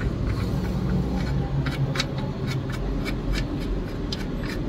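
Oil drain plug being screwed back into the oil pan by hand after the drain: irregular light clicks over a steady low hum.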